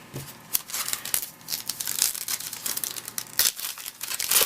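Plastic wrapper of a trading-card pack crinkling as it is handled and torn open, an irregular run of crackles with a few louder rips.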